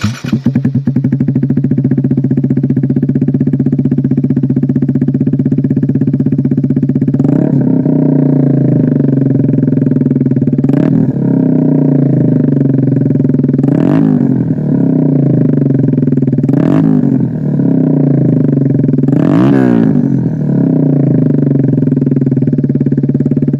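2020 Kawasaki Z125 Pro's 125 cc single-cylinder four-stroke engine idling loudly through an aftermarket iStunt exhaust with its silencer removed. From about seven seconds in the throttle is blipped five times, each a short rev that rises and falls back to idle; it sounds real loud.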